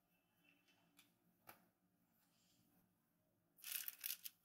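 Parchment paper on a baking tray rustling and crinkling for under a second near the end as a ball of cookie dough is set down on it, after a faint tap about a second and a half in.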